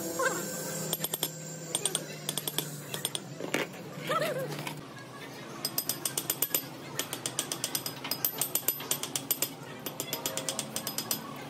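Quick, rhythmic metal tapping from work on a starter motor armature, several light strikes a second, sparse at first and settling into a steady fast run from about six seconds in.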